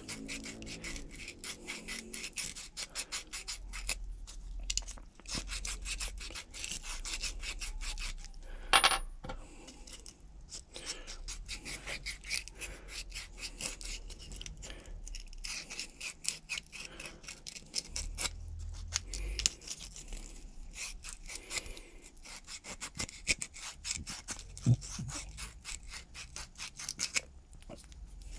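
Rough, rapid scratching of 60-grit abrasive rubbed back and forth over a pencil-kit tube, scuffing its surface so glue will bond. There is one brief louder knock about nine seconds in.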